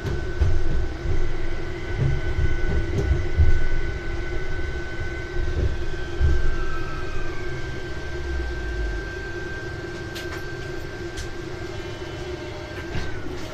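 Light-rail tram heard from its driver's cab, running slowly: the wheels rumble and thump over rail joints and points, under a steady electrical whine. About five seconds in, the traction-motor whine falls in pitch as the tram slows. After that it rolls on more quietly, with a few sharp clicks near the end.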